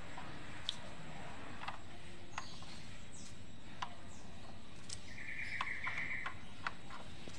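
Plastic potentiometer knobs being pressed onto a mixing console's control shafts, making scattered light clicks over a steady background hiss. A high chirping trill, like a bird's, runs for about a second past the middle.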